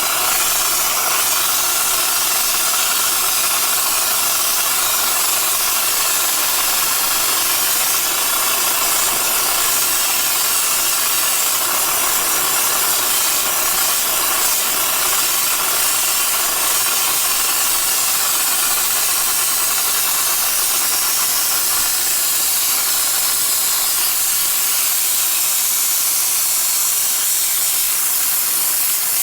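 Compressed air hissing steadily through an air-driven rotary dryer vent cleaning head spinning inside a 4-inch dryer vent duct, blowing air and lint back out of the vent.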